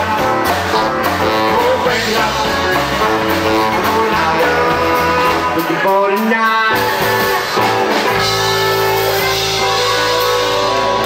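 Live rockabilly band playing: electric guitar, tenor saxophone, upright double bass and drums. About six seconds in there is a short break in the low end, and from about eight seconds the band holds a long sustained chord.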